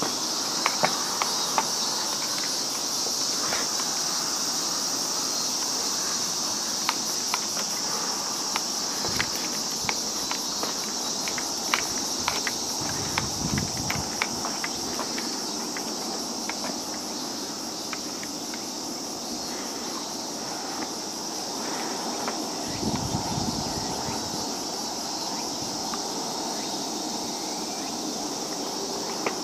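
Chorus of insects: a steady high-pitched drone that runs on without a break, with scattered light clicks and taps over it in the first half.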